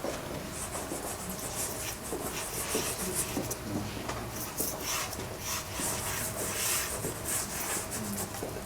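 Dry pastel being rubbed across paper primed with a fine-grained pastel ground: a run of short, irregular scratchy strokes.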